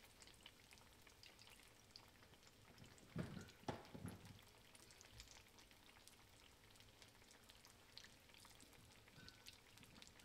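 Faint crackling of food frying in a pan, scattered small pops throughout, with a few dull knocks about three to four seconds in.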